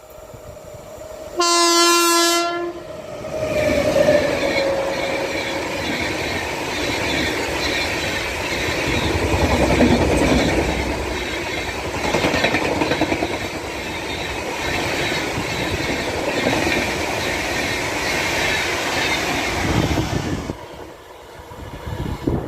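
Indian Railways WAP-7 electric locomotive sounds one short horn blast about a second and a half in, then the express train passes at speed. Its wheels clatter over the rail joints for about seventeen seconds before the sound drops off suddenly near the end.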